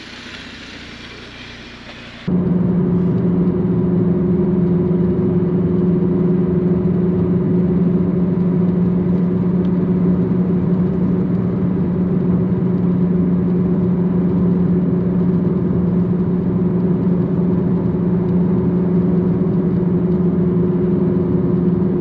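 Steady drone of a car driving at a constant speed, heard from inside the cabin: a low, even hum of engine and road noise. It cuts in abruptly about two seconds in and holds unchanged.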